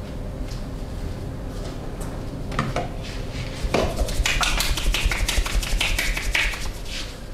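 Massaging hands striking the body in a rapid patter of taps and slaps. A few scattered taps early on, then a dense, louder run from about halfway in until shortly before the end.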